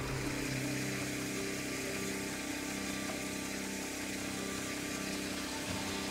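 An engine running steadily, with an even hum.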